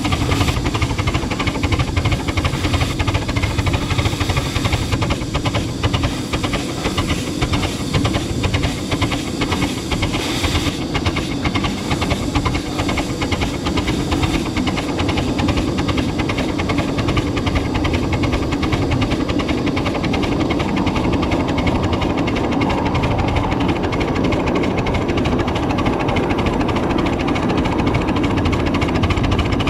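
7½-inch gauge live steam locomotive running with a steady hiss of steam, mixed with the rattling running noise of the miniature train on its track.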